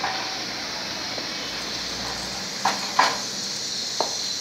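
Single-burner biogas stove being lit by hand: a steady hiss of gas with short sharp clicks and scrapes at the burner, three of them between about two and a half and four seconds in.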